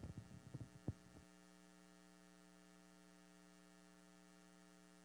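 Handheld microphone handling noise: several knocks and rubs in the first second, then the microphone goes dead suddenly, leaving only a steady electrical hum.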